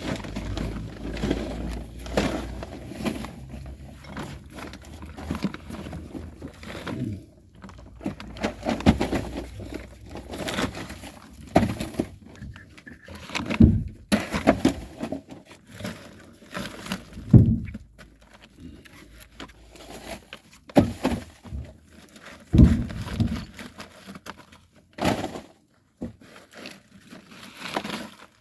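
Irregular knocks, thumps and clatter of old wood scraps and debris being pulled out of a floor space and handled, with a few heavier thuds spread through.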